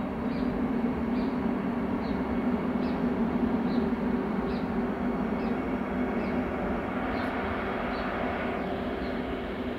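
Vande Bharat Express electric train set rolling past at low speed: a steady rumble of wheels on the rails with a constant low hum. A faint short high chirp repeats under it about every three quarters of a second.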